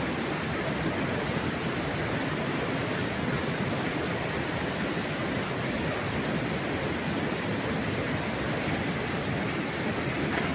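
Waterfall: a steady, even rush of falling water, with no breaks.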